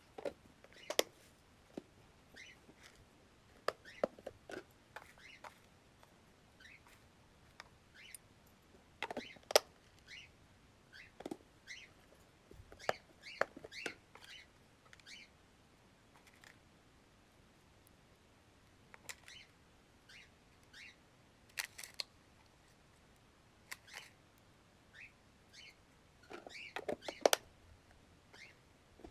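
Sparse light clicks, taps and small rattles around pet-bird food and bowls, with a few short faint chirps from pet birds, likely cockatiels.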